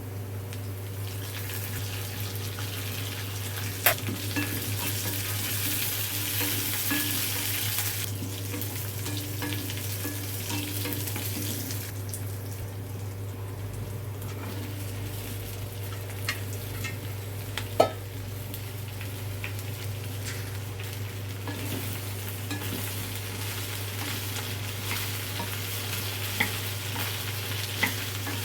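Bhindi (okra) sizzling as it fries in a pan while it is stirred, with a few sharp knocks of the spatula against the pan, the loudest about 4 and 18 seconds in. A steady low hum runs underneath.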